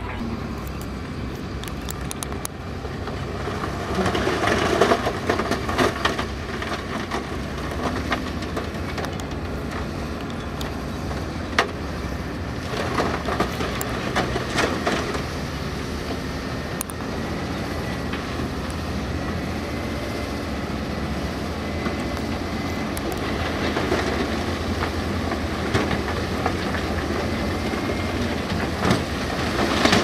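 Heavy diesel construction machinery running steadily, with repeated clanks and rattles; it gets louder and noisier twice for a couple of seconds.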